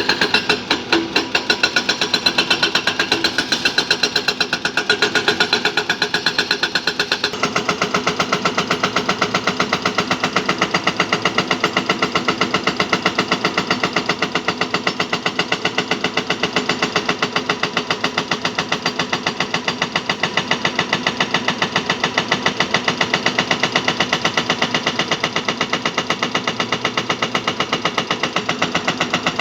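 Diesel engine of heavy earthmoving machinery running with a rapid, even clatter. Its sound shifts about seven seconds in.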